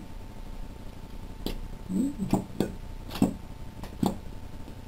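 Plastic squeeze bottle of cajeta being squeezed, giving a handful of short clicks and a brief squelch about two seconds in as the thick caramel and air are pushed out of the nozzle.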